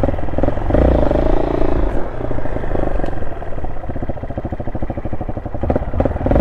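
Honda SL230's single-cylinder four-stroke engine running while the motorcycle is ridden slowly, its note rising and growing louder for about a second starting just under a second in.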